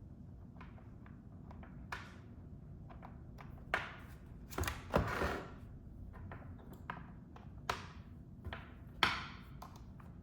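Scattered taps, clicks and knocks of things being handled on a desk, with a longer rustling scrape about five seconds in.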